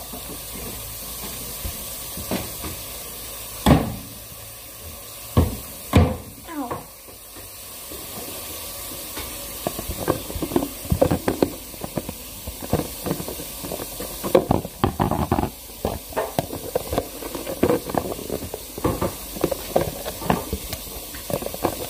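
Plastic food tub being handled, its red lid knocked and pressed on, giving a few separate knocks and then a long irregular run of plastic clicks and crackles as the lid fails to snap into place. A steady hiss underneath.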